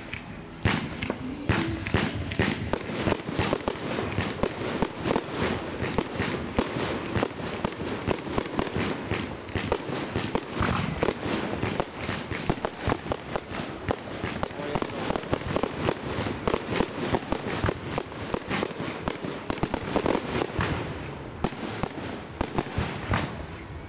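Fireworks going off in a dense, continuous barrage of bangs and crackles, many a second, thinning a little near the end.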